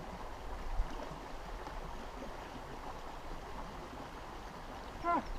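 Steady, even rush of flowing creek water with a low rumble underneath and a low bump about a second in. A short voice sounds near the end.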